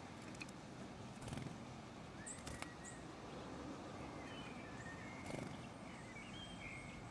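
Faint outdoor ambience with small birds giving a few short chirps and whistles, and a few soft knocks.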